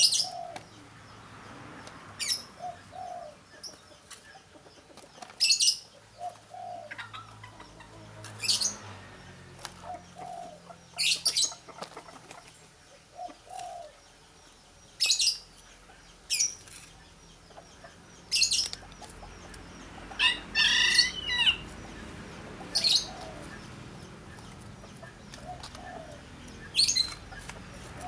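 Birds chirping: short, sharp high-pitched chirps every two to three seconds, with a longer warbling call about twenty seconds in.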